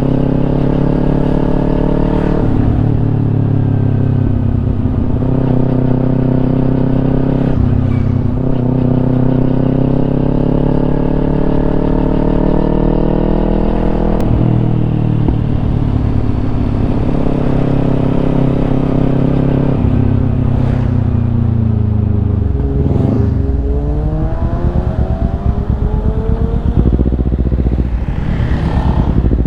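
Kawasaki Ninja 250's parallel-twin engine through a Yoshimura exhaust, pulling up through the gears. Its pitch climbs and drops sharply at each of several upshifts in the first half, then the revs fall away about two-thirds through, followed by a short rise and fall near the end.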